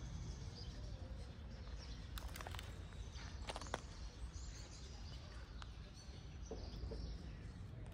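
Quiet outdoor ambience: a steady low rumble with a few faint clicks between about two and four seconds in.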